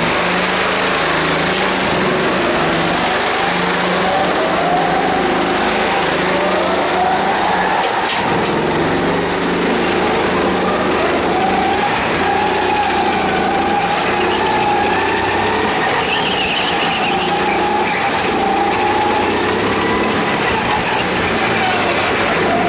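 Go-kart engine heard from on board the kart, running hard, its revs rising and falling again and again through the laps.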